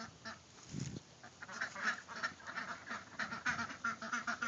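Young ducks in a pen giving a rapid, irregular run of short calls.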